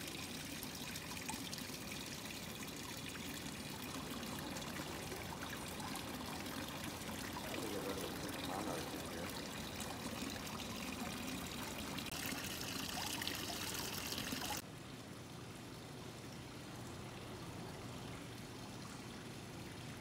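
Water trickling steadily; about two-thirds of the way through it cuts off abruptly to a quieter steady hiss.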